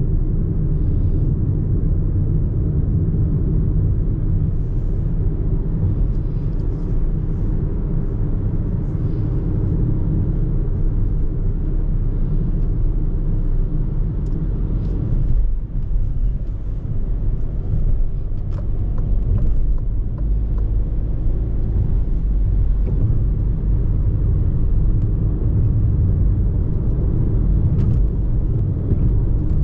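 Interior driving noise of a Citroën C4 with the 1.2 PureTech three-cylinder turbo petrol engine at road speed: a steady low rumble of engine and tyres. The level drops briefly about fifteen seconds in.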